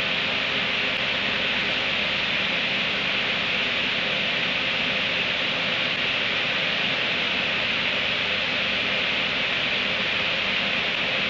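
Steady hiss, even throughout, with no separate sounds standing out from it.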